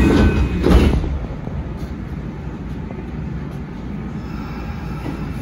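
Electric train moving at a station: a steady low rumble of wheels and running gear, louder and more uneven in the first second.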